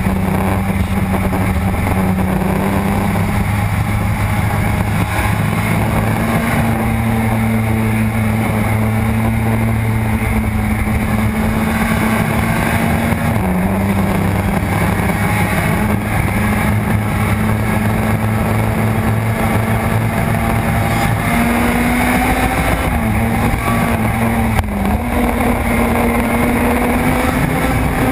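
Suzuki RG500's two-stroke square-four engine running hard under load on a racing lap, its pitch dropping and climbing again a few times, heard from a camera behind the fairing with wind rush.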